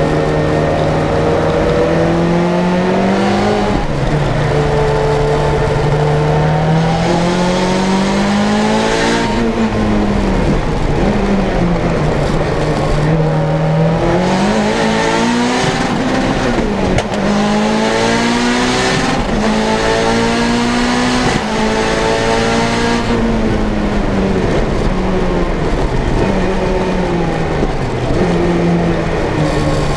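Turbocharged 16-valve four-cylinder engine of a 500 hp Lancia Delta Integrale 16v driven hard on track: its pitch climbs again and again under full acceleration and drops as the driver shifts or lifts for the corners.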